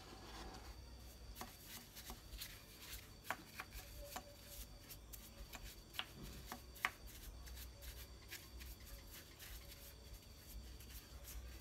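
Small paintbrush working polish into a carved wooden statue: soft brushing and dabbing with scattered light clicks and taps, the sharpest a little before seven seconds in, over a faint low hum.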